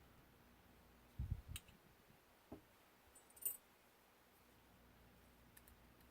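Faint, scattered clicks and handling bumps from lockpicking tools working in a 5-pin padlock: a few low bumps about a second in, a small knock, then a sharp metallic click, the loudest, about three and a half seconds in.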